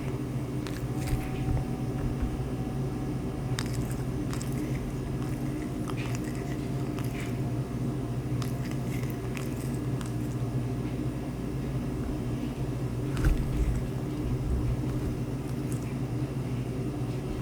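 A cat lapping water: scattered, irregular small wet clicks over a steady low hum.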